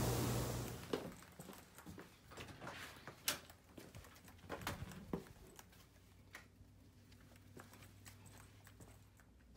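A steady rush of hot tub jets cuts off just under a second in. Footsteps of canvas high-top sneakers follow, walking on a hard tiled floor as irregular taps and scuffs, the sharpest step a little after three seconds in.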